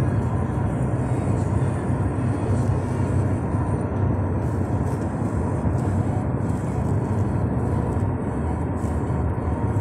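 Steady road and engine noise of a car driving at highway speed, heard from inside the cabin.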